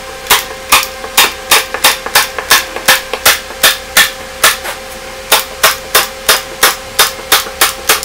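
Manual staple gun firing staples through polyester screen mesh into a wooden frame: a quick run of about twenty sharp snaps, roughly three a second, with a brief pause about halfway.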